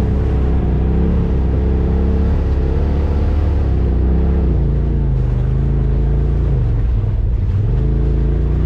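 Polaris RZR side-by-side engine running steadily as the machine drives along a trail. The pitch rises and falls a little with the throttle.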